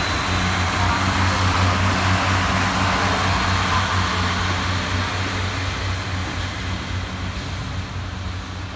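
Northern Class 142 Pacer two-car diesel railbus moving off. Its underfloor diesel engines hum steadily with wheel and rail noise, fading over the last few seconds as the train draws away.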